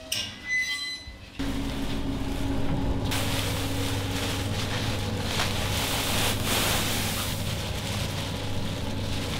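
Woven plastic malt sack rustling and crackling as gloved hands grip and open it, over a steady low machine hum that starts about a second and a half in.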